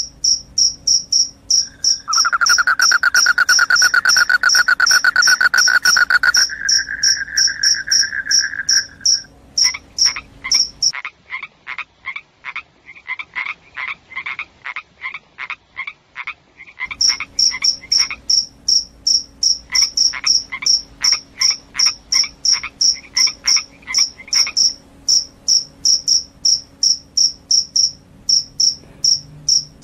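Crickets chirping, high-pitched and regular at about three chirps a second. A lower continuous trill joins in for several seconds. Near the middle the high chirps stop for a few seconds while lower, rapid pulsed calls carry on alone.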